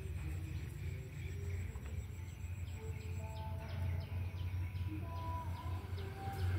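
Outdoor ambience: small birds chirping over and over in short falling notes, over a steady low rumble, with a few held higher tones.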